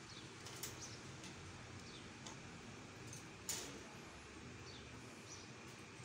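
Faint, short high-pitched chirps from caged parakeets, one every second or so, with a single sharp click about halfway through.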